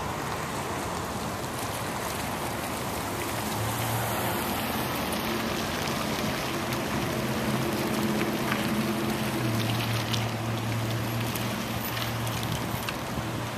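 Steady outdoor wind and traffic noise. A vehicle engine's low hum comes in about three and a half seconds in and carries on until near the end.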